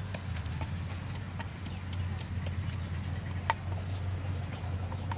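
Wooden pestle knocking in a wooden mortar as food is pounded: light, scattered knocks with one sharper knock about three and a half seconds in. Over a steady low hum, with small crackles from the wood fire.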